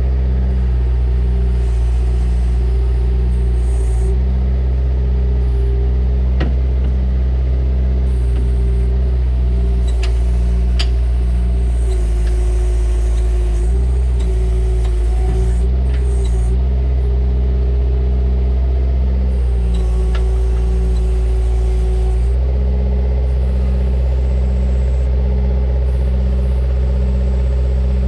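Bobcat 331 compact excavator's diesel engine running steadily under load, with a higher steady tone over it that wavers as the controls are worked. The engine note shifts about 22 seconds in, and a few faint clicks come through.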